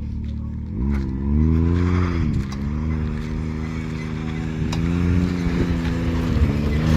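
Off-road vehicle's engine idling, then picking up revs about a second in as it pulls away and holds a steady low speed. A few faint clicks sound over it, the clicking from the front end that comes when the vehicle turns.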